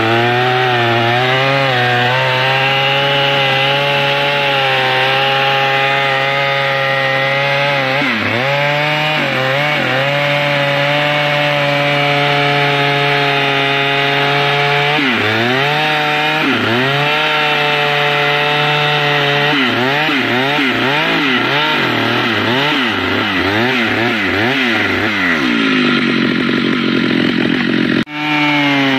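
Stihl MS 881 two-stroke chainsaw running near full throttle while cutting through mahogany. The engine pitch sags and recovers again and again as the chain bogs under load in the cut. It wavers quickly up and down for several seconds in the last third, and the sound breaks off for an instant near the end.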